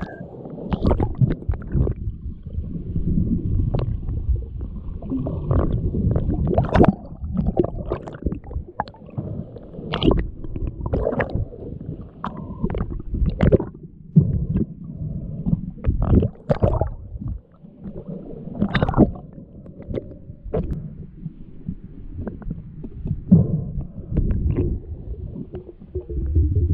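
Muffled underwater sound heard through a GoPro's waterproof housing: a low, irregular rumbling and gurgling of moving water, with frequent sharp clicks and knocks.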